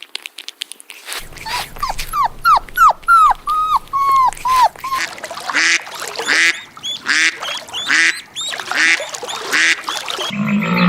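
Ducks calling: a quick run of about a dozen short falling whistled calls, then repeated quacking.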